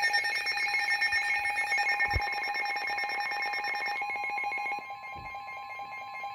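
Weather radio alert tones: a steady electronic alarm with fine rapid pulsing, joined about four seconds in by a second steady tone. It signals an incoming severe thunderstorm warning.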